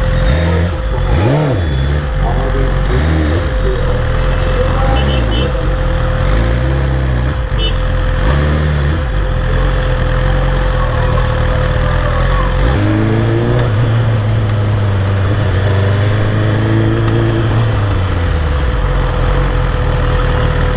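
BMW S1000RR inline-four engine at low speed in heavy traffic. The revs rise and fall with short throttle openings, then hold a steadier, higher note for about five seconds past the middle, over constant road and traffic noise.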